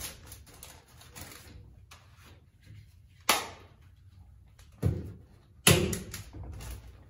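A staple gun firing three sharp clacks, fastening kraft-faced fiberglass insulation to the wall framing, the first about three seconds in and the next two closer together. Faint rustling comes before them.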